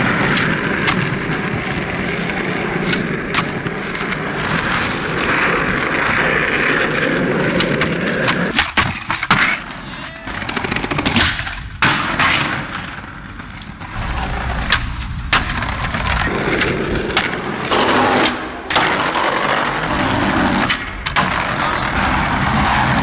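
Skateboard wheels rolling over pavement and paving bricks, with sharp clacks of the board popping and landing several times.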